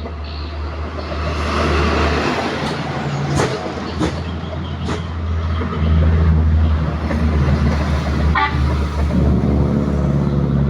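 An engine running close by with a steady low hum, broken by a few sharp clicks around the middle.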